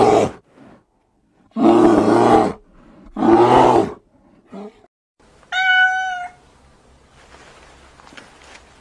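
A brown bear growls three times in short, rough bursts. About five and a half seconds in, a kitten gives one clear, high meow.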